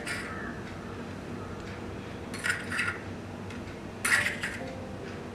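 Two short bursts of light clinking, about two and a half and four seconds in: black olive slices being taken from a small bowl and set onto a plate of fries.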